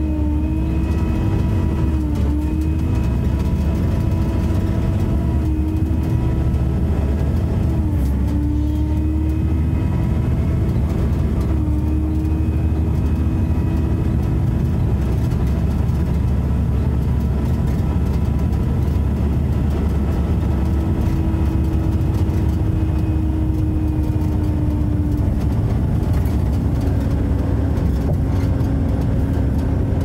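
Bus engine running hard under load with a deep rumble and a loud vacuum-cleaner-like whine (the 'hoover'). The whine climbs in pitch at the start, holds mostly steady with a few brief dips, and settles a little lower near the end.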